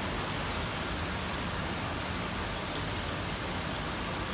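Steady rain falling and pattering on surfaces, an even hiss with faint drips.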